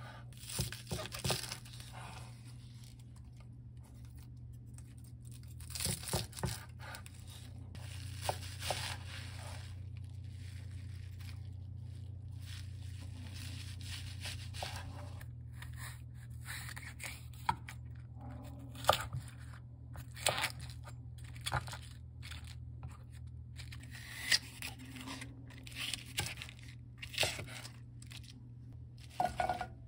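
Chef's knife cutting water dropwort, garlic chives and napa cabbage on a wooden cutting board: irregular crisp cuts and knocks of the blade on the board, with some scraping. A steady low hum runs underneath.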